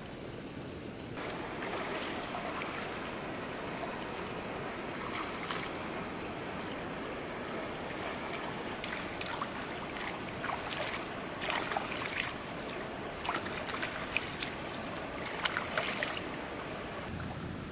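Shallow river flowing with a steady rush, and from about halfway on, a run of splashes as hands scoop and rub in the water.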